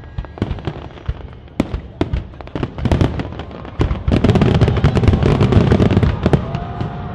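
Aerial fireworks: scattered sharp pops and crackles at first, then about four seconds in a dense, louder barrage of shell bursts and crackling.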